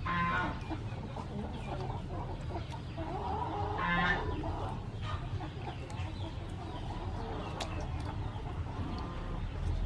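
Chickens clucking, with two louder drawn-out calls, one right at the start and one about four seconds in.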